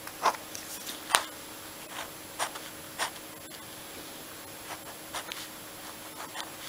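Pen drawing on paper: short, irregular strokes and scratches of the tip across the sheet, with a sharper tap about a second in.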